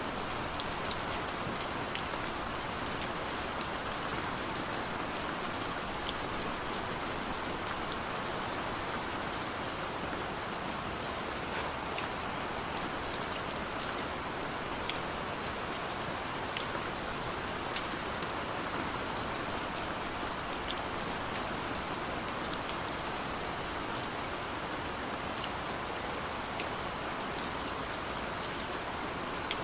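Steady gentle rain falling, an even hiss of rainfall with scattered individual drops ticking sharply on a surface.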